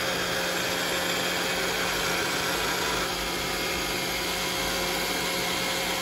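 iRobot Roomba 670 robot vacuum running steadily, its motors whirring as it drives itself back to its charging dock on command.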